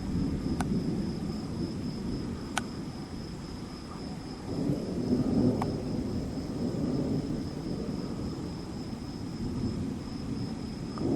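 Distant thunder rumbling, a low roll that swells about halfway through and again near the end.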